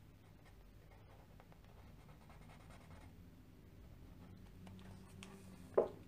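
Felt-tip pen scratching faintly across coloring-book paper in short strokes. Near the end there is one brief, louder sound.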